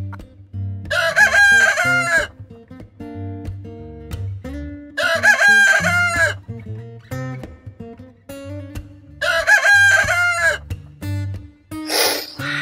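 A rooster crowing three times, about four seconds apart, each crow lasting over a second, over plucked guitar music. A short noisy burst comes near the end.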